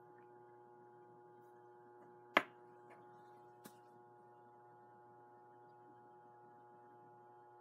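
Quiet room tone with a faint, steady electrical hum made of several tones. One sharp click comes about two and a half seconds in, followed by two much fainter ticks.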